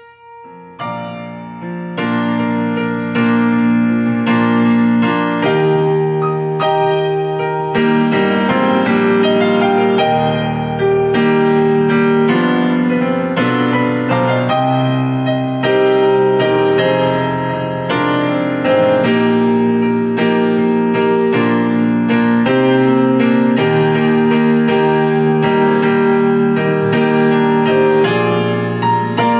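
Solo piano playing a slow piece in sustained chords. It starts with a few soft notes, then fuller chords from about a second in.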